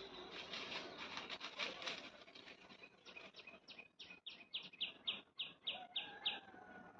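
A bird calling: a quick run of about a dozen short, high notes, each dropping in pitch, about four a second, starting around three seconds in. Before it there is scratchy rustling.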